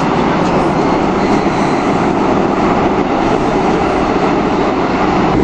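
Cairo Metro train car running, its steady loud noise heard from inside the carriage.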